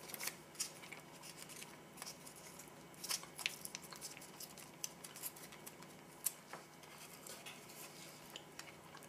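Faint, scattered crackles and clicks as hands break pieces of MRE wheat snack bread and handle them over a stainless steel tray. The clicks come at irregular moments, a little stronger a few seconds in.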